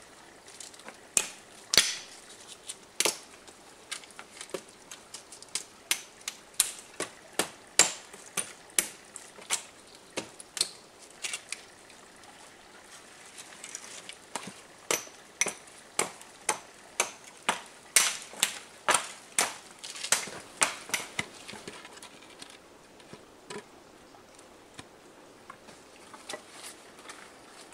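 Hatchet chopping dry wood: sharp blows at about two a second, with a short pause near the middle. The chopping dies away a few seconds before the end.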